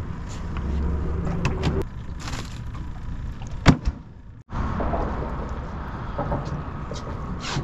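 Knocks and clatter of gear being handled on the deck of a small fibreglass skiff, with one sharp, loud knock in the middle, over a low rumble that fades out after the first two seconds.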